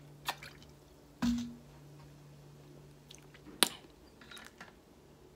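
A person drinking from a bottle: a soft gulp about a second in, then a sharp click about three and a half seconds in, followed by a few small clicks and mouth noises. A faint steady hum runs underneath.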